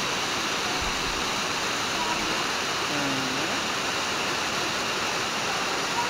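Waterfall: many thin streams of water falling down a rock face and splashing into the pool below, a steady rush of water.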